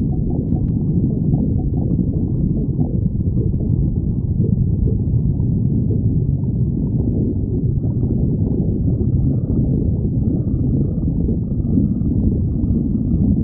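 A person's stomach growling: a continuous low rumble that keeps going without a break.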